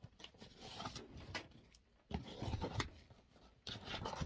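Cardboard shipping box being handled and its packing tape worked open: irregular scraping and rustling with a few knocks and clicks.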